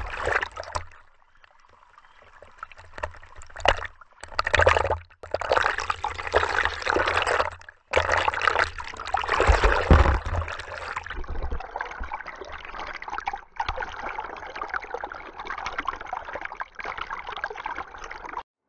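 Water sloshing and gurgling around a camera held at or under the water's surface. It comes in several short clips with sudden cuts between them.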